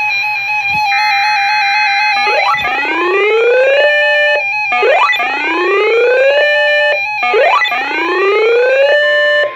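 Loud synthesized alert tone: steady high tones, then about two seconds in a rising swoop that climbs and holds, repeated three times about every two and a half seconds. It heralds an emergency alert broadcast.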